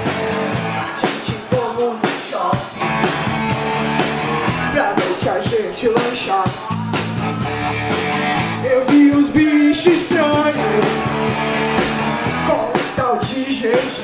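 Upbeat rock-and-roll band music: electric guitar over a steady drum beat, with a melody line bending up and down above it.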